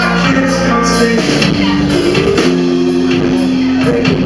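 Live band playing a slow song between sung lines: held chords over a steady beat.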